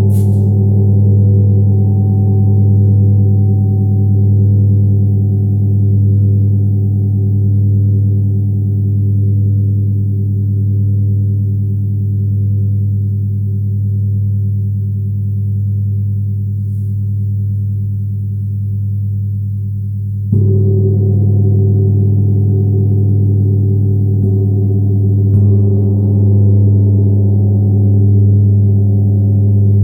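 Tibetan gong ringing with a deep, sustained hum that slowly wavers in loudness as it decays. It is struck again about two-thirds of the way through, and then twice more, more lightly, a few seconds later.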